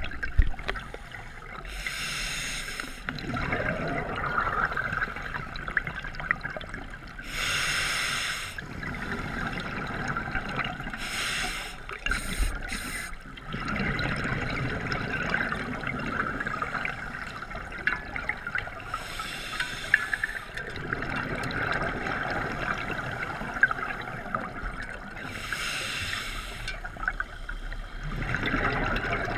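Scuba diver breathing through a regulator underwater: a steady hiss broken every several seconds by a rush of exhaled bubbles, about six in all.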